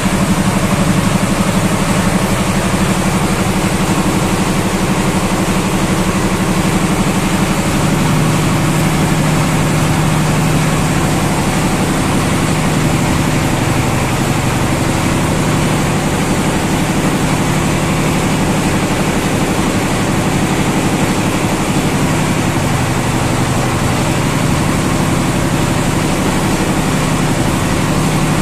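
An engine or motor running steadily with a low hum, its pitch dropping slightly about eight seconds in.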